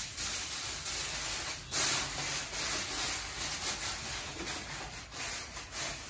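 Aluminium foil crinkling and rustling as a sheet is laid over a roasting tray and pressed down around its edges, with a sharper crackle just under two seconds in.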